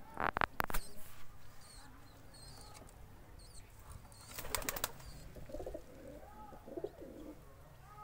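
Domestic pigeons on a concrete floor: sharp clatters just after the start and a quick run of wing flaps about halfway through, then low wavering cooing.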